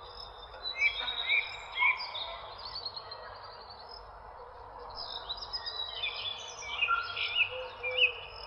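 A mix of several birds chirping and singing at once: overlapping short chirps, quick trills and whistled notes, with a few sharper, louder chirps standing out, over a steady low background noise.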